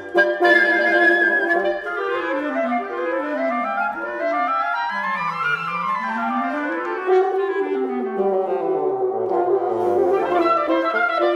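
Wind quintet of flute, oboe, clarinet, horn and bassoon playing classical chamber music. After a held chord, two parts run in opposite directions from about two seconds in, one climbing and one descending, then draw back together and settle into sustained chords.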